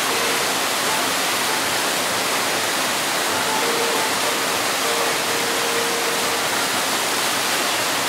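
Steady rush of water pouring and flowing through a river rapids ride's channel.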